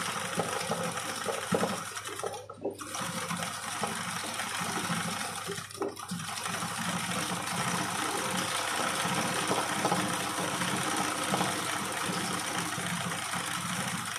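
Sewing machine running steadily as the fabric in an embroidery hoop is guided by hand under the needle for machine embroidery, with two short breaks, about two and a half and six seconds in.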